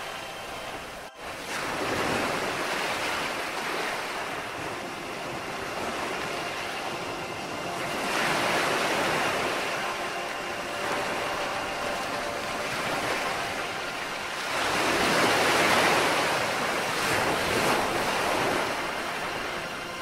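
Ocean surf washing onto a beach, a steady wash that swells three times, about every seven seconds, from an added beach ambience track rather than the live sound. A brief dip in the sound about a second in.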